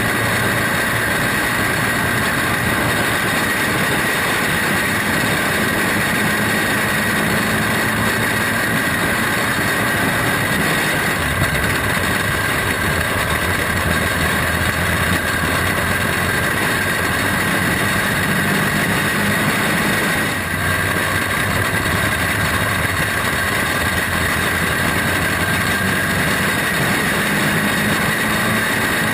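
Engine of a small caged dirt-track race car running steadily at racing speed, heard from a camera mounted on the car, with a brief dip in level about two-thirds of the way through.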